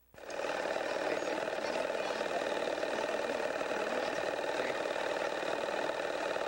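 A small motor running steadily: an unchanging mechanical whirr with a fine, rapid flutter.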